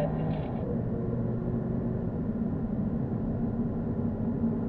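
Car engine running steadily under road and tyre rumble, a low even drone carrying a few steady engine tones.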